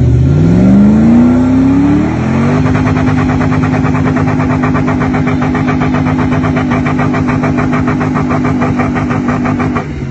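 An older 4x4 SUV's engine revving up over the first couple of seconds, then held at steady high revs while the rear wheel spins in deep sand and throws up sand. The revs fall away near the end.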